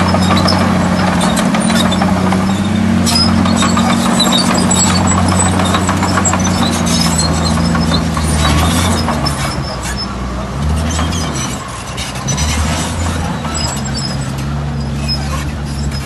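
Bulldozer's diesel engine working under changing load, its pitch stepping up and down, with scattered metallic clanks and rattles over it; it eases off about ten seconds in.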